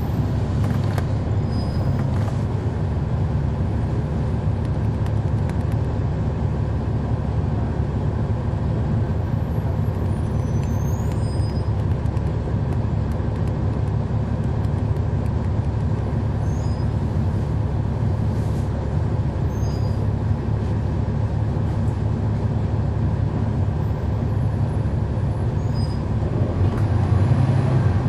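Cummins ISL9 inline-six diesel engine of a NABI 40-SFW transit bus, heard from inside at the rear of the bus, running with a steady low rumble. The engine grows louder near the end.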